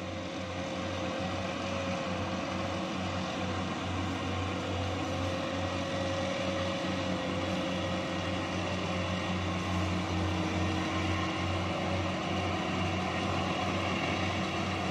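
Kubota DC-70 combine harvester's diesel engine running steadily under load as it cuts rice through soft, waterlogged ground, with a faint wavering whine over the engine note. It grows a little louder over the first two seconds as it comes closer.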